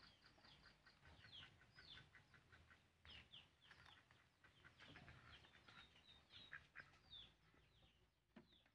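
Near silence, with faint small birds chirping again and again in short, quick notes.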